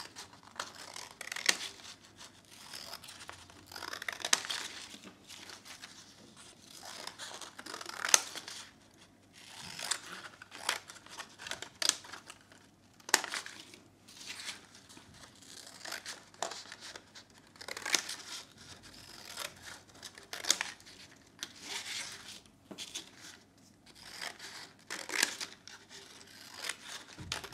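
Scissors cutting through a paper plate: short snips and rustles of stiff paper in irregular bursts, one or two seconds apart.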